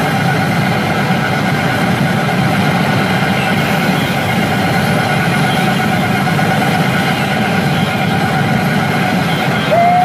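Steady, loud din of a pachinko parlour: many machines running at once with the rush of steel balls and overlapping electronic sounds, unbroken and without a clear single event.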